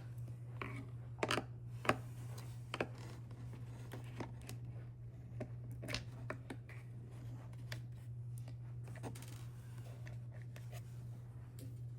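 Small screws being backed out with a screwdriver: scattered light clicks and scrapes of the driver and parts being handled, a few sharper clicks in the first few seconds, over a steady low hum.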